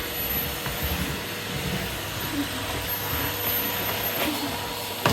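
Vacuum cleaner running steadily: a continuous motor whine over a rushing hum.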